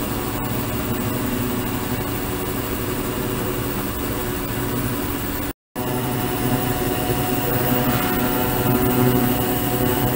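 Ultrasonic cleaning tank running: a steady hissing hum with a few low steady tones. It cuts out for an instant about five and a half seconds in and comes back slightly louder.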